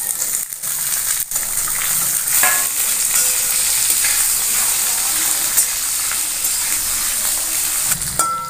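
Raw potato pieces sizzling steadily in hot mustard oil in a steel kadhai. A flat steel spatula stirs them and makes a few brief scrapes and clicks against the pan.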